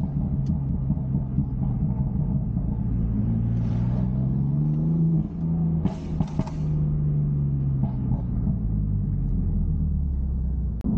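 BMW M4's twin-turbo straight-six engine running at a steady, slowly changing pace while driving, heard as a low rumble, with a short rush of noise about six seconds in.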